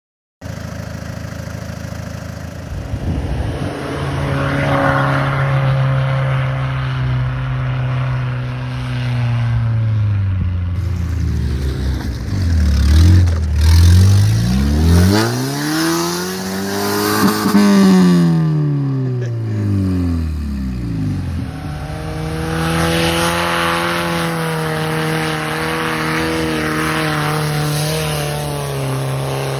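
Four-wheel-drive SUV engines driving off-road through snow, holding steady revs and then revving up and down in long rising and falling sweeps around the middle, in several short clips one after another.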